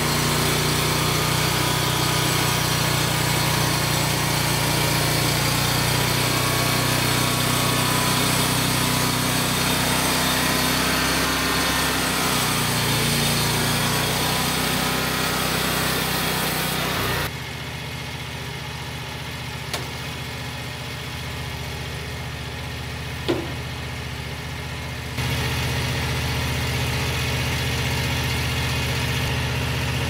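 Small gasoline engine of a Frontier OS35 portable band sawmill running hard while the band blade cuts through a cedar log. A little past the middle it drops suddenly to a quieter steady engine sound, with one sharp click, then rises again near the end.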